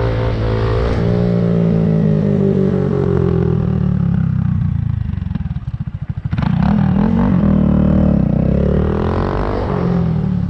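Honda Grom's small single-cylinder four-stroke engine breathing through a Yoshimura GP-Force exhaust, revving up and down as the bike is ridden. About five seconds in it drops back to a slow, low pulse, then picks up sharply again just after six seconds.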